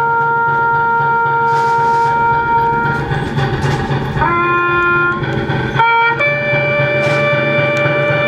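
A lone bugle playing a slow military call of long held notes during a tribute to the fallen. The note changes about three seconds in, again several times over the next few seconds, then holds a higher note to the end.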